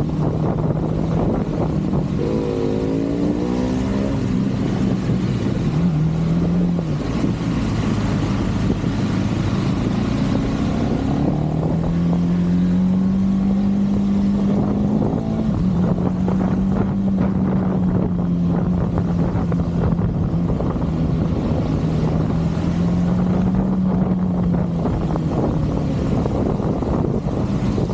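KTM 390 motorcycle's single-cylinder engine running on the move, with wind and road noise. A few quick revs climb about two to four seconds in. The pitch then climbs slowly until about halfway through and drops suddenly as it shifts up, settling into a steady cruise.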